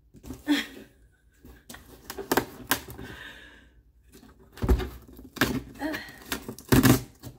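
Cardboard shipping box being handled and pulled at while opened: irregular clicks and knocks, with two heavier thumps about five and seven seconds in.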